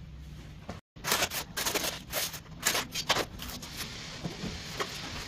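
Cardboard packaging and flat-pack furniture panels being handled: rustling, scraping and knocks as the box is opened and a panel is pulled out. It is busiest just after a brief dropout about a second in, then settles to lighter handling noise.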